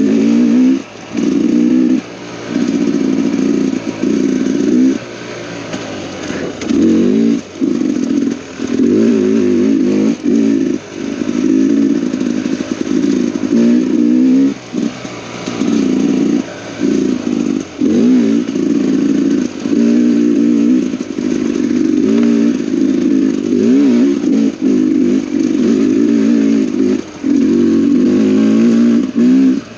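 Dirt bike engine under way, revving up and dropping back again and again as the throttle is opened and closed every second or two.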